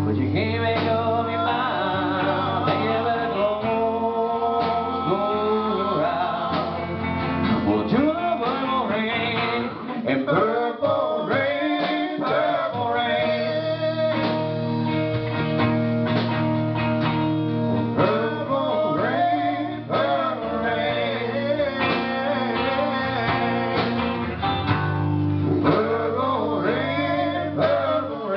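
A man singing live with an acoustic guitar strummed, the voice bending and holding long notes.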